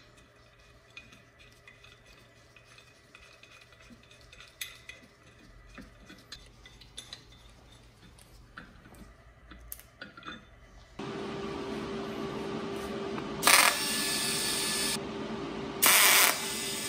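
Small metal pieces clinking and tapping, then about eleven seconds in a power tool starts suddenly and runs steadily with a steady hum, broken twice by louder hissing bursts as it bites into metal.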